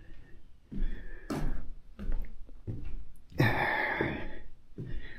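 A man breathing out heavily a few times, with a long breathy exhale about three and a half seconds in.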